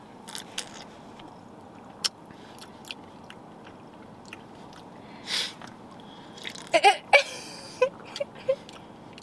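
A man sipping from an aluminium drink can, with scattered wet mouth clicks and swallows as he tastes it, a breath about five seconds in, and a flurry of lip smacks and short mouth noises near the end.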